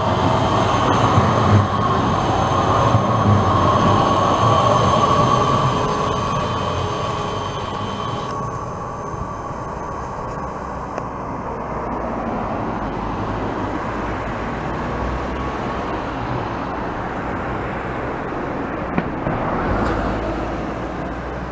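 Electric trams running on street track: wheel rumble with a steady motor whine that fades away over the first half. A quieter stretch of rumble follows, and another tram draws near close to the end.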